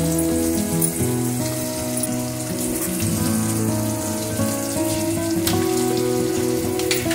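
Background instrumental music with held notes, over the sizzle of ivy gourd (kundru) frying in an aluminium kadai, with a couple of sharp crackles near the end.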